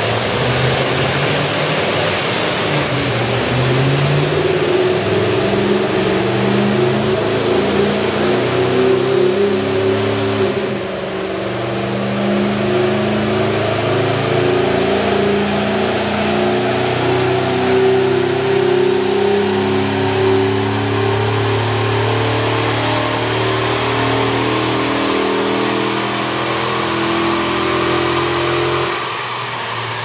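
2010 Chevrolet Suburban's 6.0L V8, running on natural gas, working hard under load on a chassis dyno, its note holding and shifting in steps. It eases off briefly about ten seconds in and drops back near the end.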